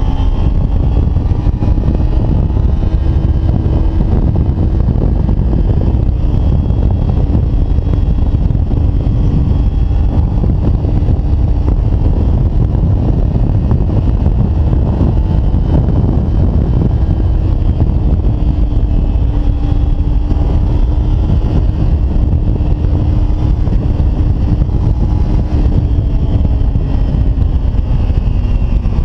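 Kawasaki Ninja 300 parallel-twin engine running at a steady cruising speed, heard from a camera mounted on the fuel tank, with a heavy low rumble of wind on the microphone. The engine's pitch rises slightly at the start and then holds fairly level.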